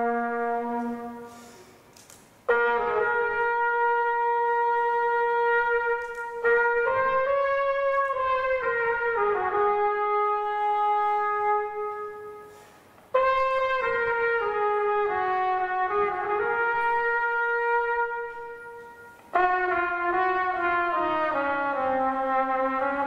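Flugelhorn playing a slow, legato melody with an accordion: long held notes in phrases that fade away into short pauses, the next phrase starting abruptly, three times.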